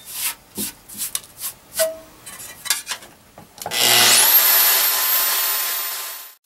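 Aluminum sheet being handled on a steel bandsaw table, a run of light knocks and scrapes. About three and a half seconds in, the bandsaw starts with a quickly rising high whine, then runs steadily with the rasp of the blade cutting the aluminum, and cuts off suddenly at the very end.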